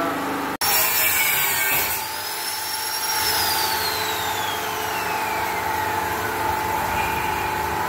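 Power tool running with a steady hum; a high whine rises briefly about three seconds in, then falls slowly in pitch over the next few seconds.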